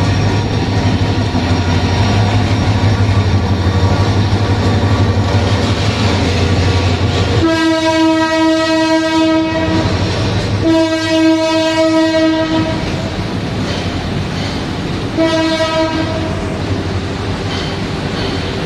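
Diesel locomotive pulling a passenger train out of the station: a deep engine drone as it passes, then three horn blasts, the first two about two seconds each and the third shorter, over the steady rumble of coaches rolling by.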